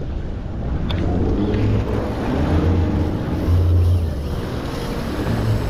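Outboard motors of a fishing boat running with a steady low hum, their pitch drifting up and down a little as the boat maneuvers, over wind and rushing water.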